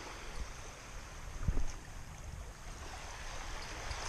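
Small, gentle waves lapping and washing on a sandy shoreline, with one low thump about one and a half seconds in.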